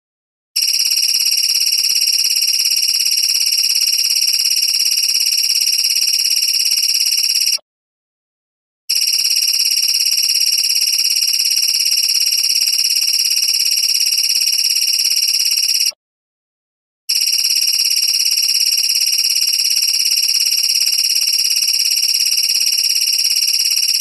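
Steady, high-pitched insect-like buzzing that runs without a break, a looped recording that cuts to silence for about a second twice.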